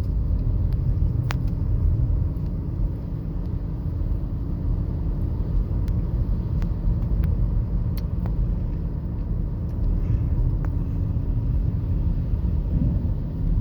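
Car driving, heard from inside the cabin: a steady low road and engine rumble with a faint constant hum and a few faint ticks.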